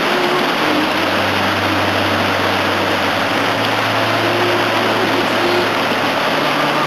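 Whitewater rapids rushing steadily over rock ledges.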